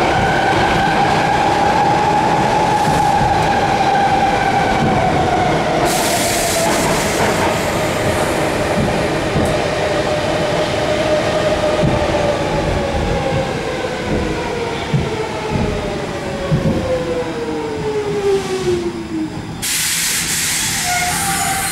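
Interior ride noise of a Stockholm metro C6 railcar: the traction motor whine slides steadily down in pitch as the train slows, over rumble and wheel clatter on the track. Near the end the whine dies away and a hiss of air starts.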